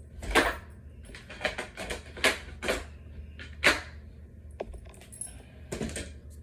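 Irregular sharp clicks and knocks, about eight of them at uneven spacing, from small silver metal fittings and flat-pack dresser panels being handled as the fittings are pushed into their holes. A steady low hum runs underneath.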